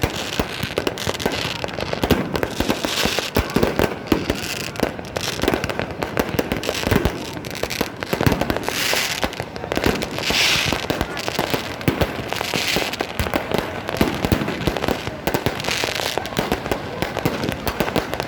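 Fireworks going off continuously: a dense run of bangs and crackling reports, with hissing bursts every second or two.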